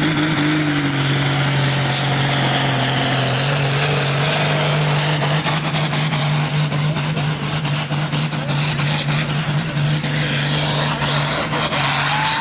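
Farm tractor's diesel engine running at full load, pulling a weight-transfer sled, with a steady low drone. A high thin whistle rises over the first two seconds and then holds.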